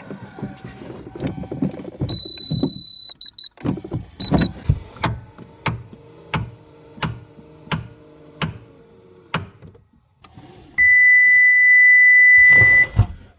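Subaru Outback power liftgate in action. Its warning beeper gives a long high tone, then short beeps. The liftgate motor then runs for about five seconds with a regular clicking knock about twice a second, which the owner guesses comes from the motor's sprocket area. A lower long beep follows near the end.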